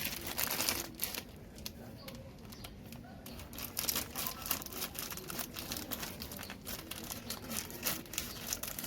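Crinkling and rustling handling noise, many short crackles in quick succession, with people talking in the background.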